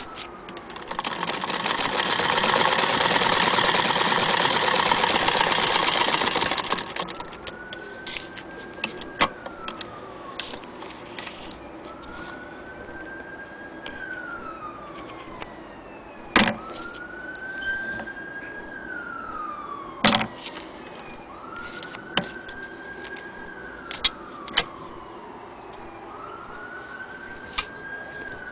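Singer 99K hand-crank sewing machine running fast for about six seconds: a dense, rapid clatter of stitching. After it stops, a siren wails in the distance, rising, holding and falling about every four seconds, with a few sharp clicks in between.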